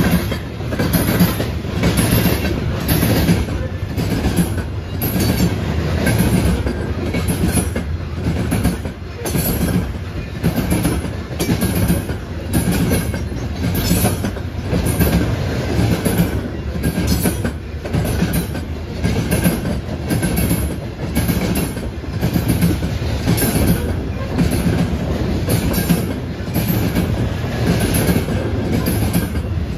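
Freight train cars rolling past, their wheels clacking over rail joints in a steady, repeating rhythm over a continuous rolling rumble.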